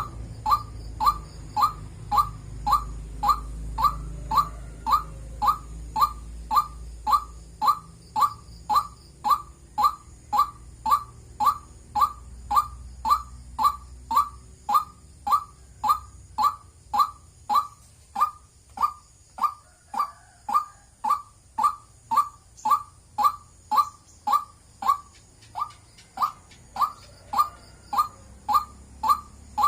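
White-breasted waterhen calling 'wak wak': a short, whistle-like note that rises slightly, repeated steadily about one and a half times a second.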